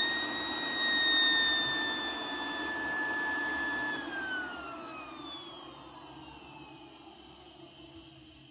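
Zirocco road dryer's blower running on new bearings: a smooth, steady whine that holds for about four seconds, then falls in pitch and fades as the machine spins down.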